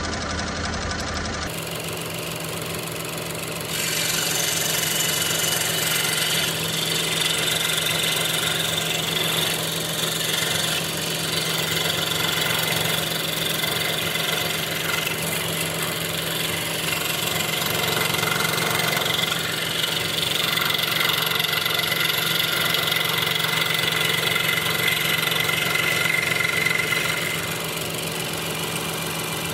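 Electric scroll saw running, its reciprocating blade cutting through MDF: a steady motor hum, with a louder, harsher rasp of the cut from about four seconds in until near the end.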